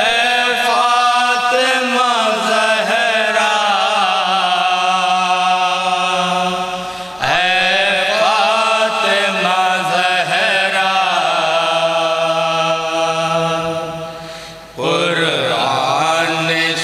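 Male voices chanting a noha, an Urdu mourning lament, in long drawn-out phrases: one starts at the beginning, another about seven seconds in and another near fifteen seconds, each held and tailing off before the next.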